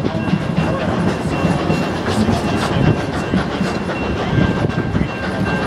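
Narrow-gauge steam train rolling along the rails, heard from an open-air passenger car: a steady rumble and rattle of the wheels and cars, with thin high tones that come and go.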